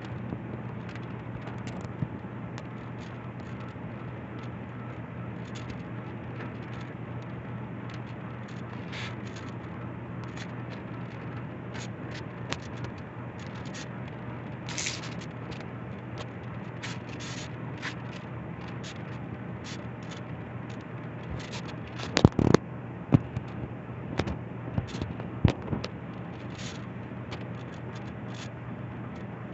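Ceiling fan running at speed with a steady low hum. Scattered sharp clicks and crackles run through it, with a cluster of louder ones about three-quarters of the way through.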